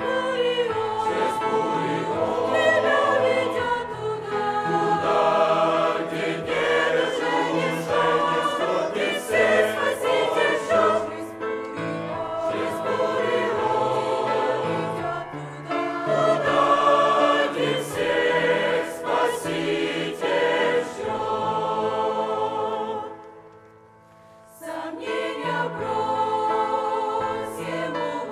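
Mixed youth choir of men's and women's voices singing a Russian hymn. There is a brief break about four seconds before the end, then the singing resumes.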